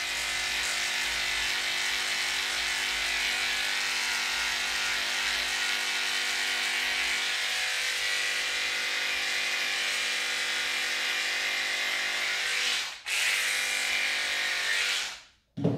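Electric dog-grooming clippers with a #7 blade running steadily as they cut through a poodle's coat, a constant buzz. The motor drops out for a moment about thirteen seconds in, runs again, then stops just before the end.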